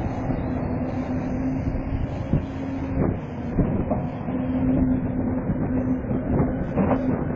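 Tracked excavator running: a steady mechanical hum over a rough running noise, with scattered sharp knocks and clanks. The hum drops out for about a second a little past the middle.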